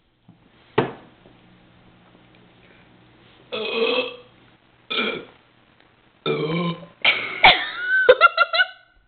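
A person burping several times in a row, deliberately, as in a burping contest. The burps come as separate bursts, the last and longest with its pitch sliding up and then down and breaking into quick pulses near the end. A sharp click comes about a second in.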